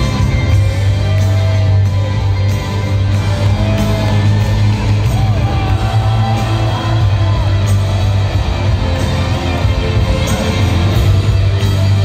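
Live rock band playing, loud through a phone in the audience: a lead electric guitar line with notes bent up and down over a steady bass and drums.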